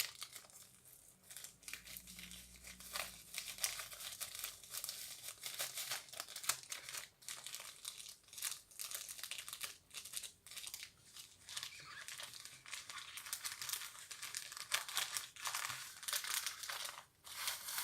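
Plastic packaging crinkling and rustling in irregular bursts as it is handled and folded, with no pauses longer than a moment.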